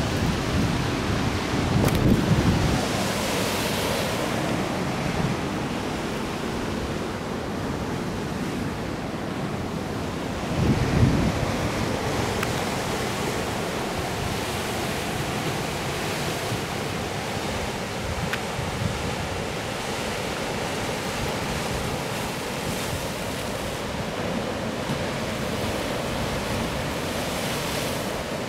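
Sea surf washing and breaking on a rocky shore, a steady rushing noise with wind on the microphone. It swells louder about two seconds in and again around eleven seconds in.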